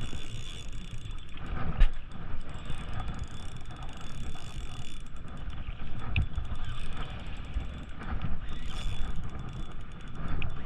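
Fishing reel being cranked against a hooked fish, its gears and drag ticking under load.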